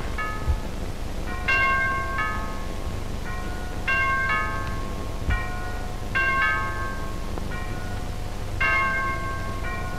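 Church bells ringing in the New Year: several bells of different pitches swinging and striking in an uneven pattern about once or twice a second, each stroke ringing on. Under them lies the low hum and crackle of an old recording.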